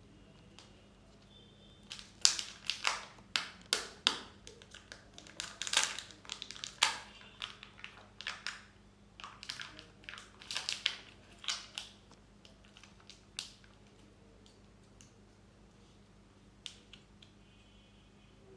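Kinder Joy egg wrappers crinkling and tearing as they are opened by hand, close to the microphone, in a dense run of sharp crackles from about two seconds in to about thirteen seconds, then only a few faint clicks and taps.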